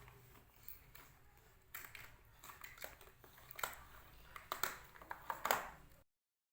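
Irregular sticky clicks and crackles of slime being squeezed and pulled by hand, cutting off suddenly about six seconds in.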